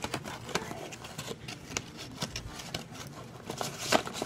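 Paper gift bag and tissue paper rustling and crackling as they are handled, in irregular small clicks and crinkles, the loudest crackle near the end.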